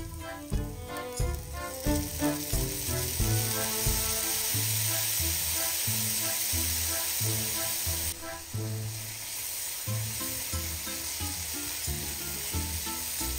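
Button mushrooms sizzling as they fry in a frying pan, the sizzle swelling about two seconds in. Background music with a steady beat plays underneath.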